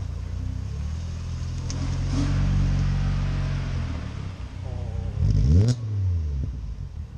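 Car engine running steadily, then revved once about five seconds in, its pitch rising quickly and falling away again.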